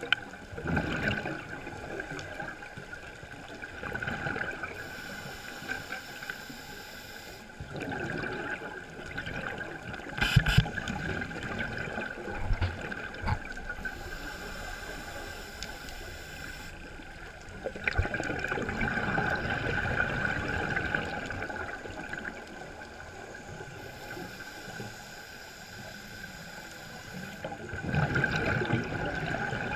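Scuba diver breathing underwater through a regulator: a thin hissing inhale, then a long burble of exhaled bubbles, repeating about every ten seconds, three times over.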